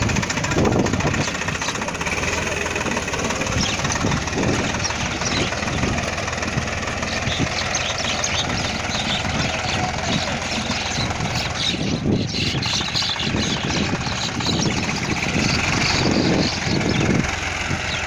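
Swaraj 960 tractor engine running steadily under load while its rotary tiller churns through the soil.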